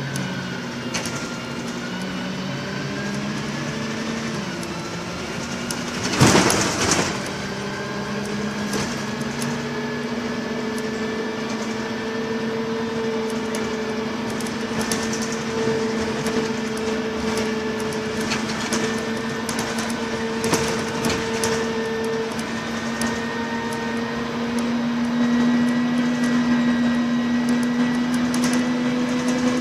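On board a MAN 18.220 single-deck bus with Alexander ALX300 body on the move: the diesel engine and driveline hum steadily, with a fainter higher whine, growing a little louder in the last few seconds. About six seconds in, a loud burst of rushing noise lasts about a second.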